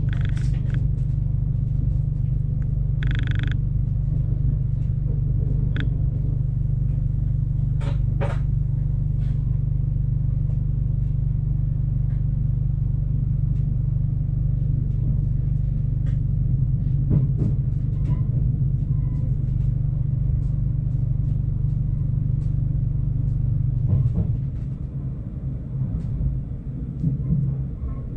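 Stadler GTW diesel multiple unit running slowly, heard from the cab: a steady low engine drone with scattered clicks of the wheels over rail joints and points. A short high tone sounds about three seconds in, and near the end the drone falls away to a rougher, quieter rumble.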